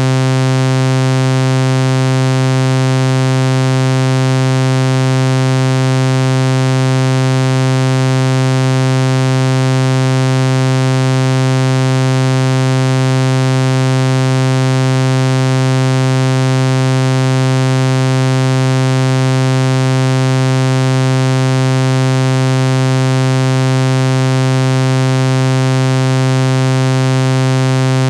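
A steady electronic sound-effect tone: one low buzzing pitch with many overtones over a hiss, held without any change in pitch or loudness.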